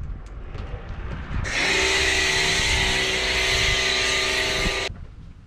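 Bosch Aquatak 110 electric pressure washer running while the trigger is held: the pump motor's steady whine under the loud hiss of the water jet. It starts about a second and a half in and cuts off suddenly about three and a half seconds later when the trigger is released.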